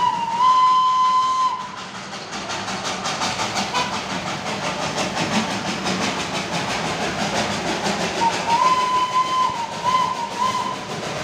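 Darjeeling Himalayan Railway narrow-gauge steam locomotive working past close by. A whistle blast ends about a second and a half in, then comes a steady, rhythmic chuffing exhaust with hiss, and near the end a longer whistle blast followed by two short ones.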